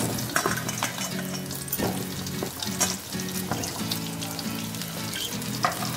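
Potato wedges sizzling in hot mustard oil in a metal pan, with light clicks as pieces are set down against the pan. Soft background music with steady held notes plays along.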